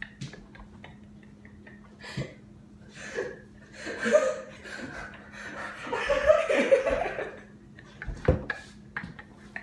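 People laughing and breathing hard, loudest in the middle, with a few light knocks and one heavy thump near the end.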